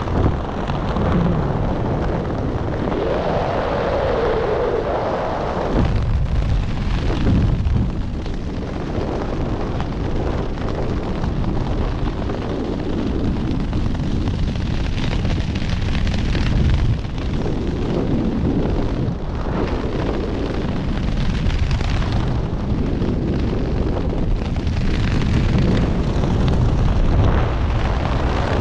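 Wind buffeting a head-mounted camera's microphone during a parachute canopy flight, a loud low rumble that swells and eases in gusts.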